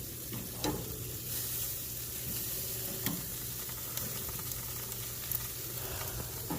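Meat sizzling steadily on a barbecue grill, with a few short sharp clicks.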